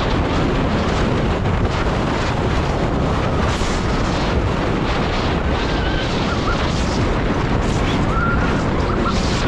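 Vekoma motorbike coaster train running at speed along its steel track: loud, steady wind rush on the front-row microphone over the rumble of the wheels. A few faint high squeaks come in between about six and eight seconds in.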